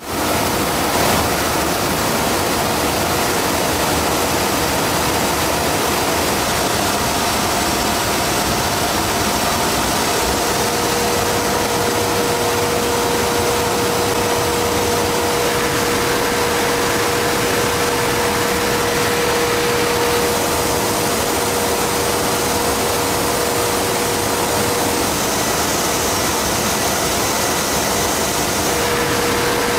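Paper machine running: a steady, dense mechanical noise with no rhythm. A steady tone joins it about a third of the way in.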